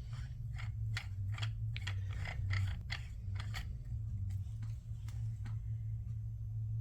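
Light, irregular clicks and ticks of a modular airgun moderator being handled and screwed onto an air pistol, over a steady low hum. The clicks stop about five and a half seconds in.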